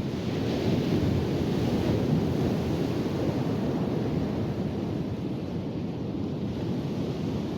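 Ocean surf breaking on the beach, a steady low rushing that swells about a second in and then eases, with wind buffeting the microphone.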